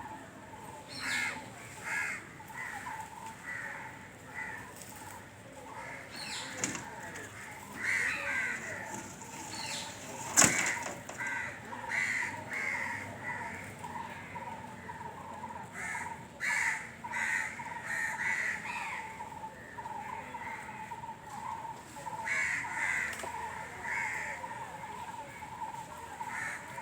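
Birds calling over and over, harsh short calls in runs of a few at a time, with a single sharp click about ten seconds in.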